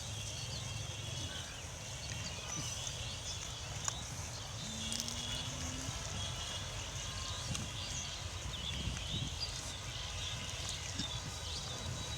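Pigs grunting and snuffling out in the open, with birds chirping in the background.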